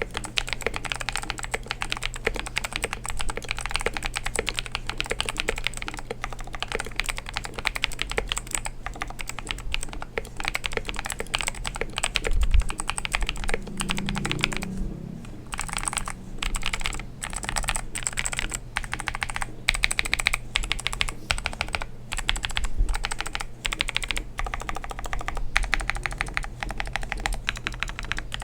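Fast, continuous typing on a Royal Kludge RK84 mechanical keyboard with lubed RK Blue clicky switches, stock keycaps, an aluminium plate and foam and tape dampening mods. The keystrokes come in dense runs with brief pauses.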